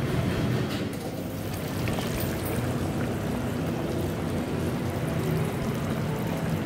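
Thick coconut-masala egg curry bubbling steadily at a boil in a pot.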